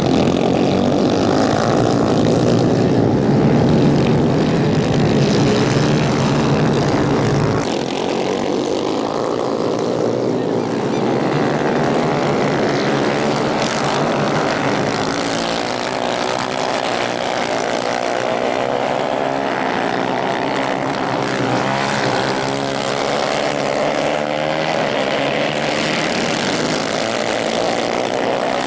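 Several 250 cc racing kart engines running at race speed as the karts lap the track, a dense high buzz whose pitches keep rising and falling as the drivers accelerate and lift. The deep low rumble drops away about a quarter of the way in.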